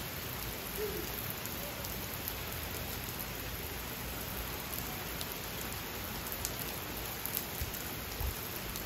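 Steady rain falling on pavement and lawns: an even hiss with a few faint drop ticks.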